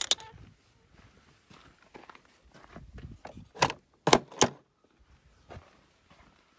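A few sharp clicks and knocks: one right at the start, then three close together from about three and a half to four and a half seconds in, over faint footsteps.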